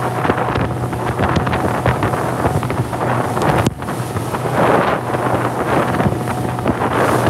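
Wind buffeting the microphone over the steady hum of a chase RIB's engine, with spray and waves slapping as the boat bounces through choppy water.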